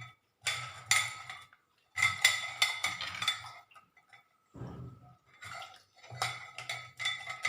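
Metal spoon scraping and stirring inside a bell-metal uruli, the vessel ringing with each stroke, in three bursts of quick strokes with a fainter one between them.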